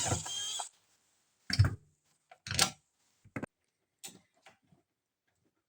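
A power tool whines briefly and stops under a second in. It is followed by half a dozen separate clicks and knocks from tools and the heater's fuel pump fittings being handled as the pump is taken off.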